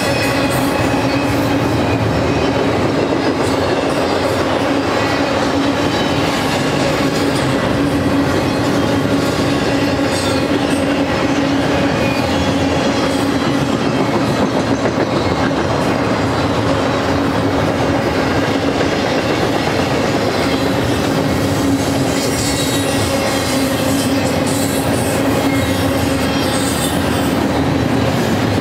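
Double-stack intermodal freight train's well cars rolling past at steady speed: an unbroken rumble of steel wheels on rail, with a steady hum running under it.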